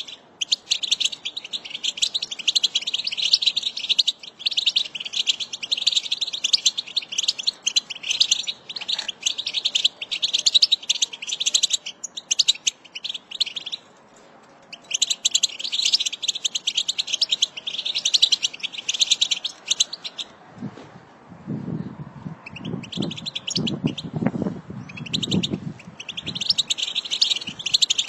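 American goldfinch song: long runs of rapid, high twittering, with a brief pause about halfway through. For a few seconds in the last third a lower, rougher sound sits underneath the song.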